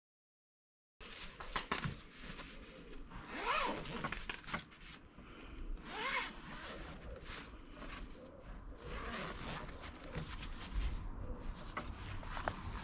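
Zip on a fabric carry bag being pulled open in several long strokes, starting about a second in.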